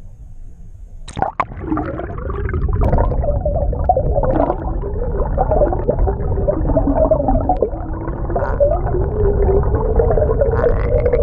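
Water rushing past an underwater camera towed behind a moving boat, with a sharp splash about a second in. Under the low rumble of the water runs a whine that wavers up and down in pitch and settles into a steady tone near the end, the boat's motor heard through the water.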